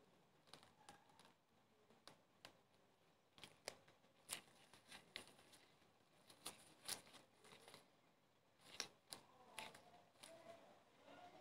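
Faint crackling and rustling from gloved hands pulling apart a baked bread roll, with scattered sharp little clicks.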